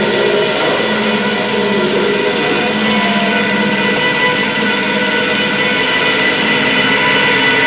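Loud electro dance music from a DJ set over a club sound system: a dense, steady wash of held synth chords with no breaks.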